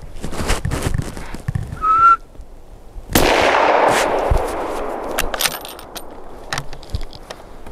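A short whistle, then about a second later a single gunshot, its report rolling on through the forest for about two seconds as it fades.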